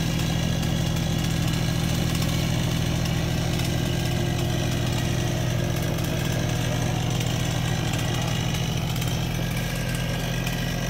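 Bobcat skid-steer loader's engine running steadily at a low, even speed as the machine creeps forward.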